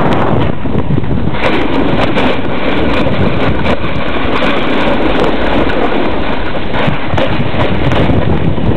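Skis scraping and chattering over groomed snow while skiing downhill, under loud wind rushing over the camera microphone.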